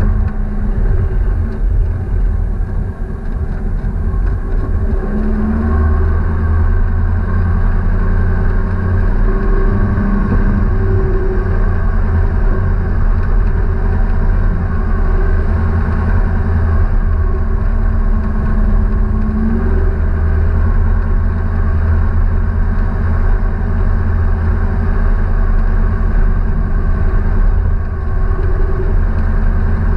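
A vehicle engine running steadily, with a constant low rumble.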